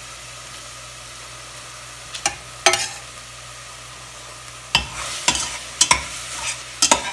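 Metal spatula scraping and clanking against stainless-steel pans while cooked ground pork is scooped into a pot, over a steady sizzle of frying. A couple of strokes come partway through, then a quicker run of them over the last couple of seconds.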